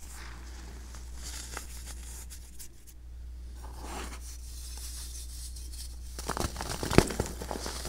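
Baking soda worked by hand: soft crunching of the loose powder squeezed between the fingers, then dried baking soda chunks being broken apart, with a run of sharp cracks near the end, the loudest about seven seconds in.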